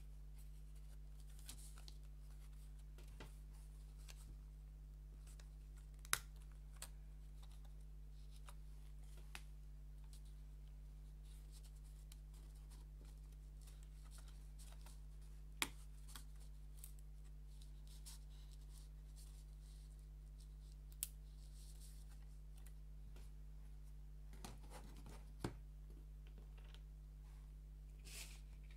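Small wooden puzzle pieces being handled: sparse sharp clicks and taps, four of them louder than the rest, with light scraping and rustling in between, over a steady low hum.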